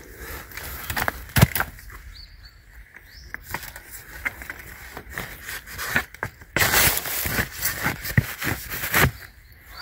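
Digging and scraping through soil, roots and leaf litter to uncover a wild bamboo shoot, with scattered knocks. It grows busier and louder for the last few seconds.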